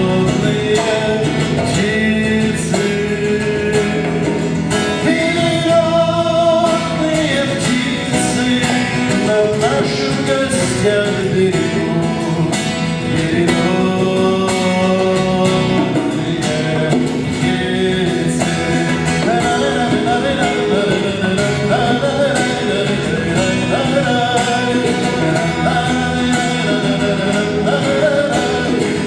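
A man singing a song to his own acoustic guitar accompaniment, played live in a room.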